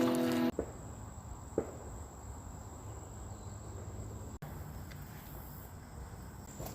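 Insects trilling steadily as one continuous high-pitched tone. A low steady hum cuts off suddenly about half a second in.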